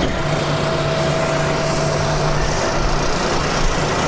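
Steady machinery drone with a constant low hum and a fainter higher tone held over a broad, even noise.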